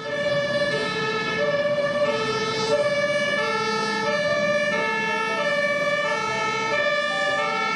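Two-tone hi-lo emergency siren, alternating steadily between a lower and a higher note about every half second, over a steady high tone.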